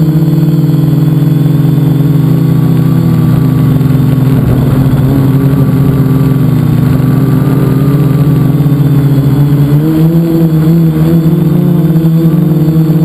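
Multicopter's electric motors and propellers heard from its onboard camera: a loud, steady multi-pitched buzzing hum. It turns briefly rougher about four seconds in and rises slightly in pitch about ten seconds in.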